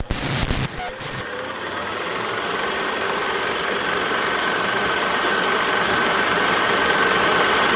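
Logo sound effect: a quick run of sharp hits in the first second, then a steady mechanical-sounding whir with a faint high tone held underneath.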